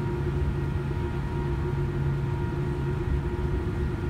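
Steady cabin noise inside a Boeing 787-8 taxiing after landing: a low rumble from the rolling airframe and the idling engines, with a few steady hum tones over it.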